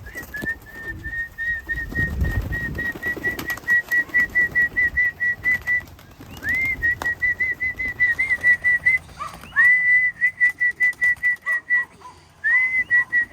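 A person whistling the feed call for racing pigeons. Four trilled phrases, each opening with a rising swoop and then warbling at a steady high pitch, about six pulses a second, with short breaks between them.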